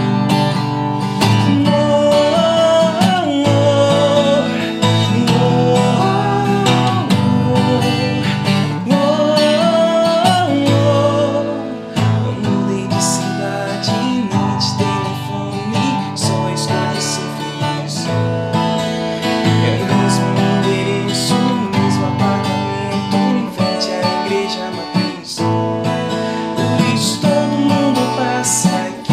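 Acoustic guitar strumming chords in an instrumental break of a sertanejo song. A wordless melody line glides over the chords in the first half, then the strumming carries on alone with sharp, even strokes.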